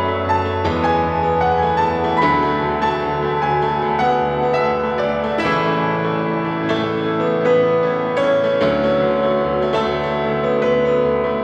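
Instrumental piano music: a melody over sustained chords that change every second or two.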